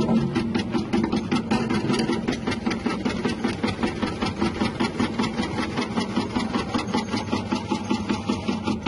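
Electric chip-slicing machine with a 180-watt motor, running steadily: a hum with an even, rhythmic clatter about six times a second.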